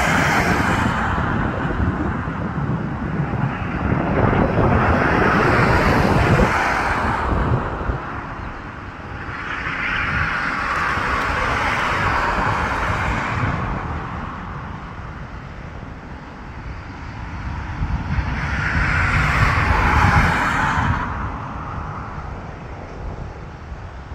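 Road traffic: three vehicles pass close by in turn, each a swell of tyre and engine noise that rises and fades, over a low rumble of wind on the microphone.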